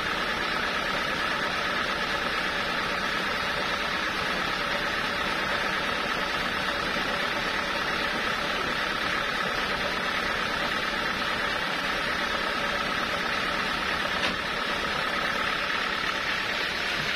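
Sawmill machinery running steadily: a constant mechanical noise with a held high tone that does not change in pitch or level.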